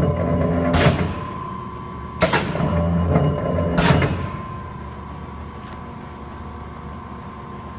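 Cincinnati press brake cycling its ram: a stroke ends with a sharp clank about a second in, then a second stroke starts with a clank around two seconds in and runs with a low hum until another clank near four seconds. Afterwards the machine runs on more quietly, with a faint steady high whine throughout.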